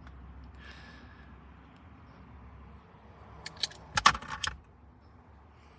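9mm hollow-point cartridges clinking as they are handled: a quick cluster of sharp metallic clicks about three and a half to four and a half seconds in, over faint room noise.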